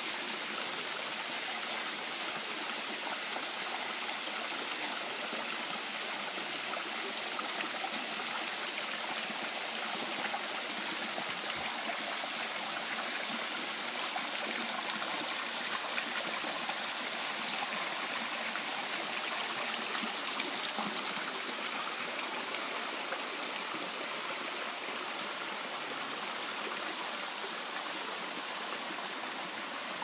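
Small waterfall and stream: water spilling over rock ledges and splashing among boulders, a steady rushing hiss that grows slightly stronger in the middle.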